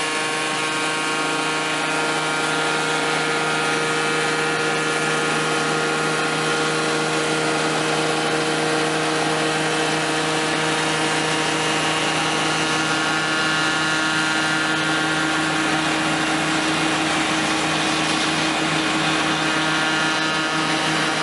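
Altai ChN280 log notch-cutting machine running steadily, its motor and cutter giving a continuous whine with several held tones.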